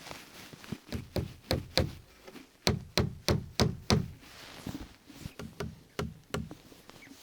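A series of sharp knocks, about three a second, coming in three groups with short pauses between; the middle group is the loudest.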